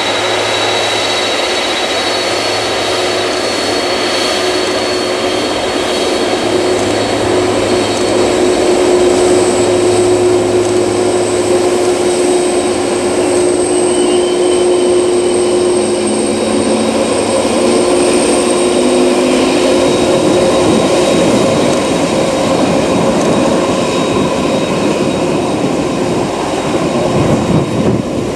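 The four turbofan engines of a Boeing 747-400F freighter running at taxi power close by: a steady jet whine with several held high tones over a broad roar. A deeper exhaust rumble builds near the end as the aircraft turns its tail toward the listener.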